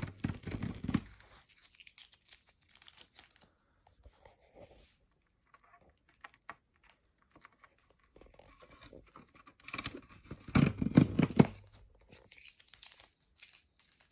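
Plastic packaging being torn and crinkled by hand while a new humidifier is opened, with bursts of loud rustling at the start and again around ten to eleven seconds in.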